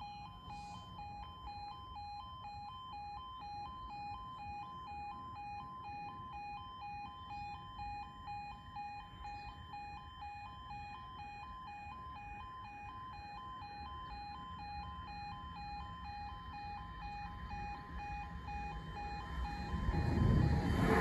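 Level crossing warning alarm sounding, a two-tone yodel alternating steadily between a lower and a higher note while the barriers are down, warning of an approaching tram or train. Near the end an approaching tram's running noise swells quickly and grows loud.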